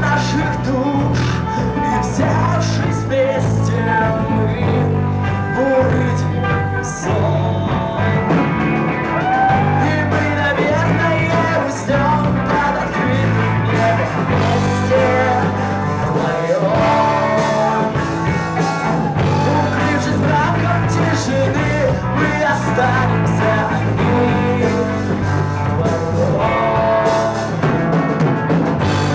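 A rock band playing a song live, with singing over a steady bass and rhythm.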